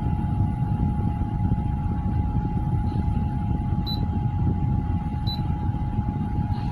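Small personal air-cooler fan running, its airflow buffeting the microphone as a fluctuating rumble, with a steady thin motor whine above it. Two short faint high chirps come in the second half.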